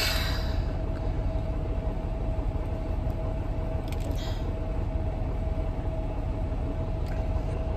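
Steady low rumble of a semi truck's engine heard inside the cab, with a thin steady hum above it.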